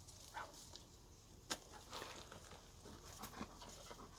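Dog picking and chewing Nanking cherries off the bush: faint scattered smacks, rustles and clicks, with one sharper click about a second and a half in.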